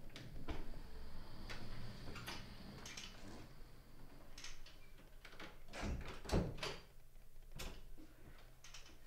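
Wooden front door and its lock being opened and closed, a series of separate latch and handle clicks and soft knocks, the loudest about six and a half seconds in.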